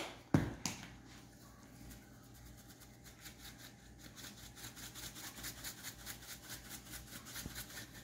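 Black pepper being shaken out of a glass shaker jar, a faint, quick rattling rhythm of several shakes a second from about three seconds in. A couple of sharp clicks come at the very start as the red cap is handled.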